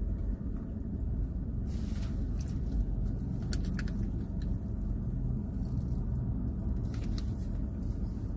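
Steady low rumble of a car cabin, with a few short crisp sounds, the loudest about three and a half to four seconds in, as a bite is taken from a flaky-crusted beef patty held in a paper bag.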